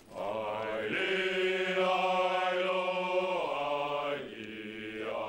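French Foreign Legion soldiers singing together in unison as they march: a men's chorus on long held notes that shift pitch a few times.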